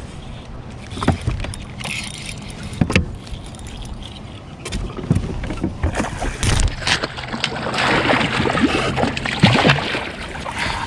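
Handling noise from a fishing kayak on the water: a few sharp knocks against the boat, then a busier, noisier stretch of movement in the second half.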